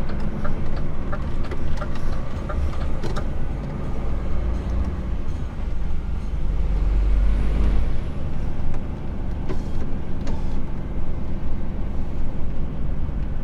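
HGV lorry engine running as the truck drives slowly, heard from inside the cab, with a light regular ticking in the first few seconds. About seven seconds in a hiss rises and cuts off suddenly near eight seconds.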